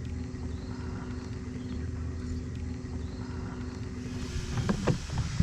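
Minn Kota electric trolling motor on a motorized kayak running with a steady hum, cutting off about four and a half seconds in, followed by a few knocks.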